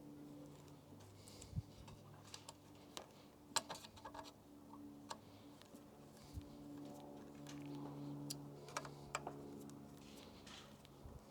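Scattered light clicks and taps from hand tools and metal parts being handled while fastening the e-bike kit, over a faint steady hum.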